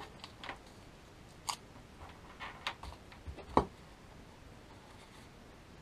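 Light clicks and rustles of hands handling the drone's plastic remote controller and packaging on the table, about half a dozen brief taps with one sharper knock about three and a half seconds in.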